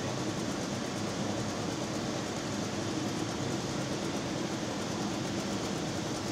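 Steady rumble of heavy diesel truck engines running, with an even hiss over it and no breaks.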